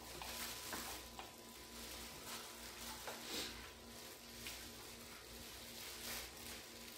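Hands in disposable plastic gloves pulling apart braised pig's trotters, giving faint irregular crinkling, rustling and small sticky clicks. A faint steady hum runs underneath.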